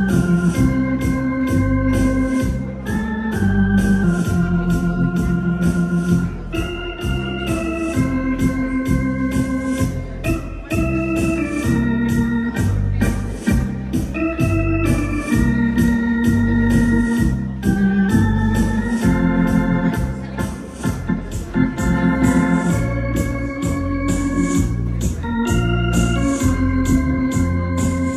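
Electronic keyboard played live with an organ voice: tango-time dance music, a melody of held notes over low chords and a steady beat.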